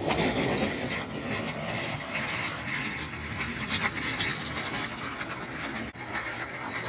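Battery-powered toy Thomas the Tank Engine running along plastic track: a steady whirring gear motor with a rasping rattle of its wheels on the track.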